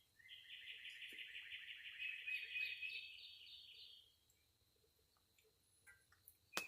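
A wild animal's high trill of quickly repeated notes that lasts about four seconds, rising a little in pitch before it fades. A sharp click comes near the end.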